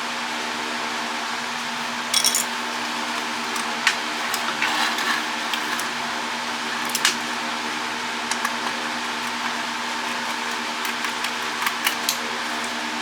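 Scattered light clicks and clatter of plastic and metal parts being handled while a WiFi router is taken apart, over a steady machine hum.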